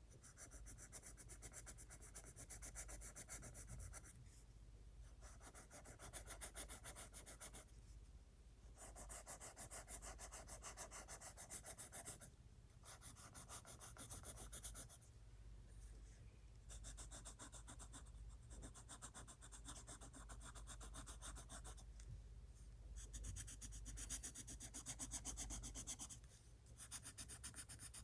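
Colored pencil rubbing on sketchbook paper in quick back-and-forth shading strokes. The strokes come in runs of a few seconds with short pauses where the pencil lifts; the sound is faint.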